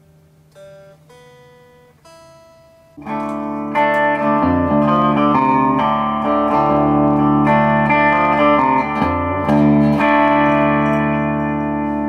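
Squier Stratocaster electric guitar played through a Peavey Valve King tube combo amp. It starts with a few soft single notes while it is tuned, then from about three seconds in loud ringing chords are held and changed every second or so.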